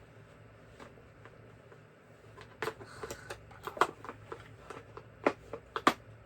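Sharp clicks and knocks of screwdriver bits being handled and fitted into their slots in the set's case, starting about two and a half seconds in, with three louder knocks in the second half.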